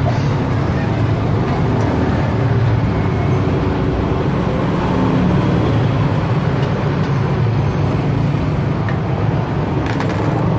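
Steady low engine rumble of a running motor vehicle, with a faint click near the end.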